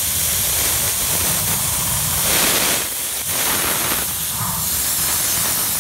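A miniature steam locomotive's open cylinder drain cocks blowing off steam in a steady hiss, with a louder gust about two and a half seconds in.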